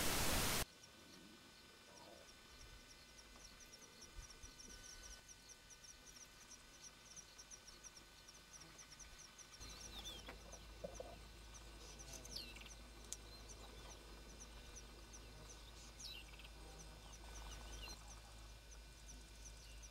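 Faint savanna ambience of birds calling: a fast, even run of high chirps, with a few falling whistled calls in the second half.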